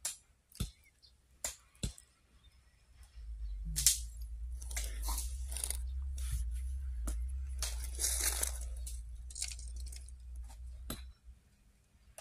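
Crackling, crinkling rustle close to the microphone over a steady low rumble from about three seconds in to about eleven, after a few light clicks.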